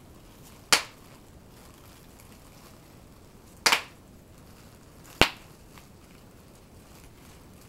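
Bubble wrap popping under a toddler's pressing hands: three sharp, separate pops a couple of seconds apart, the middle one a quick double.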